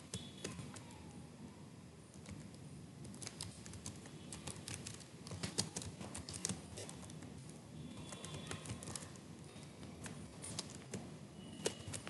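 Typing on a computer keyboard: quiet runs of rapid keystrokes broken by short pauses.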